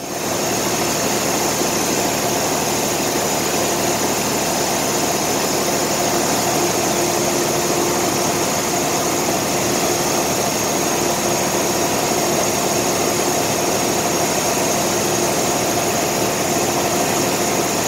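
Grain dryer running steadily with grain flowing through it: a loud, even machine roar with a constant hum and a high hiss, unchanging throughout.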